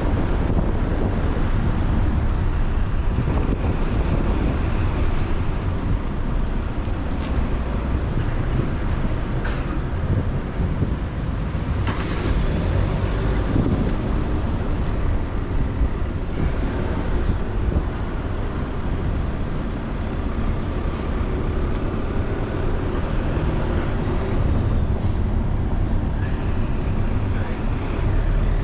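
Car driving through city traffic: a steady low rumble of engine and road noise, with a few short clicks.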